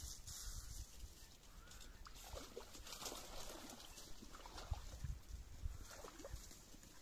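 A few faint duck quacks, in short bunches about two and a half seconds in, again near four and a half seconds, and near six seconds, over a low wind rumble.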